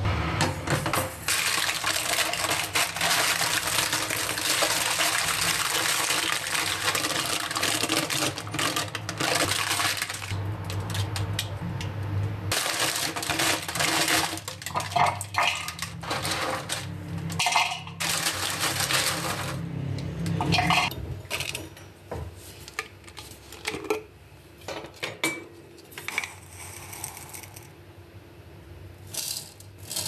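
Hands crumbling a dry, crumbly baked mixture on baking paper in a metal baking tray: dense crackling and paper crinkling for the first dozen seconds, then separate crunches and rustles that get quieter and sparser in the last third.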